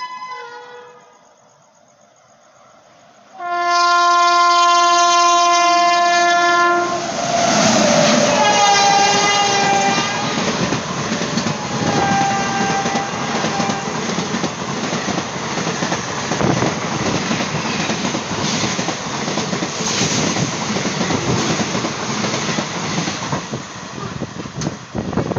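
Indian Railways WAP-7 electric locomotive horn sounding a long blast about three seconds in. The train then arrives: the horn sounds again, dropping in pitch as the locomotive passes, with a short toot a few seconds later. The coaches then run past with a steady rumble and a rhythmic clickety-clack of wheels over rail joints, which drops away near the end.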